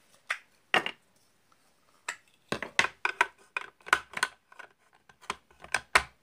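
Large plastic building bricks clicking and knocking as they are handled and pressed together. There are a couple of single clicks at first, then a quick run of clicks from about halfway through.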